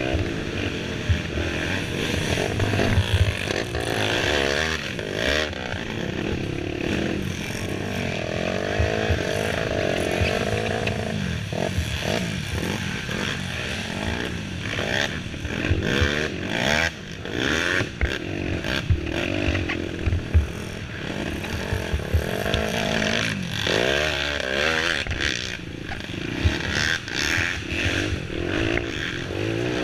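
Youth racing quad's engine running hard, heard on board, its pitch rising and falling over and over with throttle and gear changes. Frequent knocks and clatter come from the machine bouncing over rough trail.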